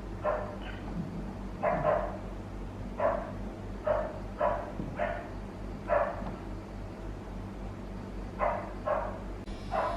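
A dog barking repeatedly in short single barks, with a break of a couple of seconds in the middle, over a steady low hum.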